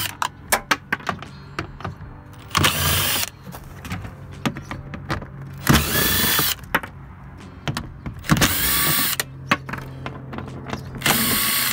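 A power drill turning a 10 mm socket on an extension, backing out the door-panel screws in four short runs a few seconds apart. Small clicks and knocks come between the runs.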